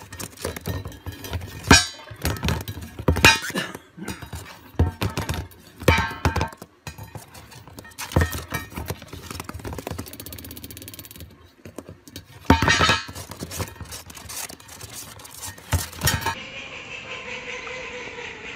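A lovebird flipping and tossing a plastic dish around a cardboard box: a string of sharp clattering knocks of the dish on cardboard, some single and some in quick runs. About two seconds before the end the knocks stop and a steady hiss takes over.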